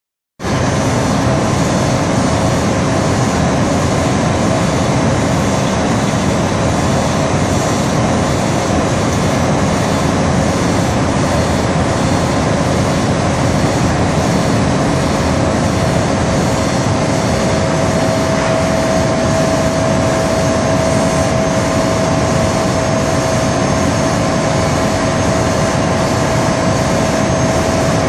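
Steady din of production-line machinery in a large factory hall, with a steady whine that grows stronger about two-thirds of the way through.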